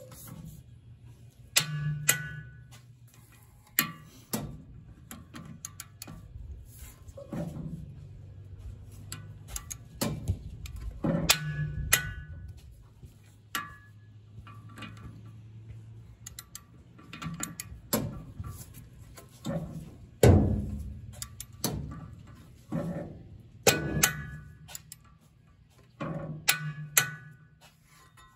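Socket, extension and torque wrench clinking and knocking against the steel knife bolts and knife on a Vermeer BC1500 chipper drum as the new knife is fitted and torqued down: irregular sharp metal strikes, several ringing briefly, the loudest about twenty seconds in.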